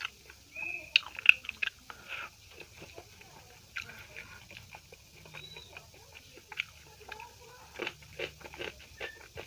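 Close-up chewing and mouth sounds of someone eating a meal of dal, rice and chapatti: irregular wet clicks and smacks, loudest in the first two seconds.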